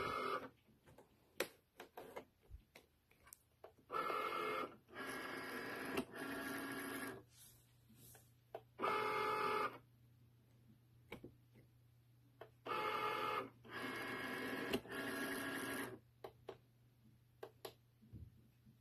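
Cricut cutting machine's motors whirring in bursts of about a second, each a steady whine of several tones, with quiet gaps and light clicks between them.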